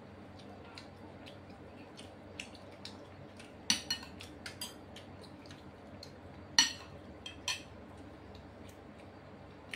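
Tableware clinking during a meal: scattered light taps and scrapes of fingers and spoons on ceramic plates and serving dishes, with a few sharper clinks, the loudest about two-thirds of the way in.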